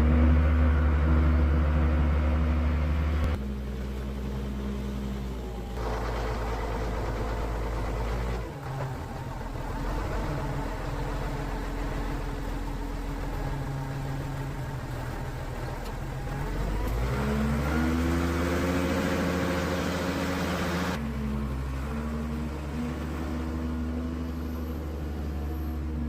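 A log lift's engine running, idling and revving up and down, with several abrupt changes in sound.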